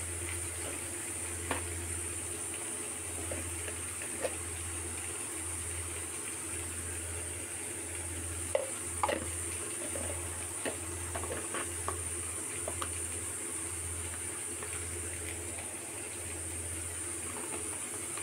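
Tomato-and-ginger masala sizzling in hot oil in a kadai: a steady hiss with small pops and crackles now and then, over a low hum.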